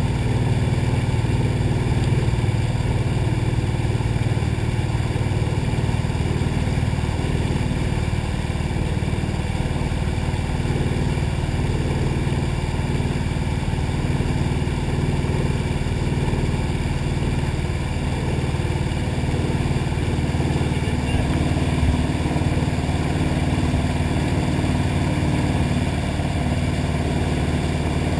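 Towing wakeboard boat's engine running steadily at an even speed, mixed with water rushing and splashing in the wake.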